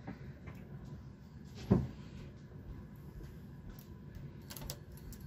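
One sharp knock about a second and a half in, then a few light clicks near the end, from hand work at the edge of a Brother knitting machine's metal needle bed as edge stitches are moved with a hand transfer tool to decrease.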